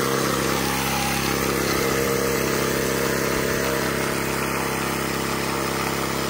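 Ryobi cordless battery tyre inflator running, a steady hum of unchanging pitch, as it pumps air into a UTV tyre to top it off.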